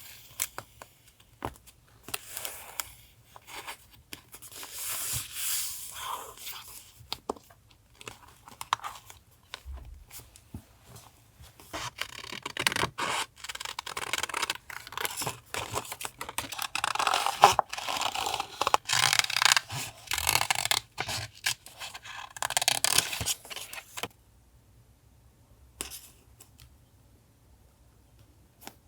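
Paper being handled for a collage: tearing, rustling and scraping of paper, with short clicks. It is densest in the middle and stops suddenly about three-quarters through, leaving only a few faint taps.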